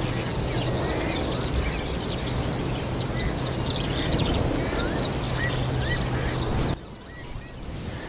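Skylark singing: a long unbroken stream of rapid high chirps and trills, over a steady rush of wind on the microphone. It cuts off suddenly about seven seconds in.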